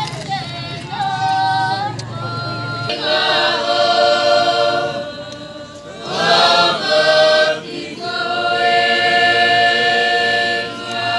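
A choir singing in harmony, with long held notes and short breaks between phrases.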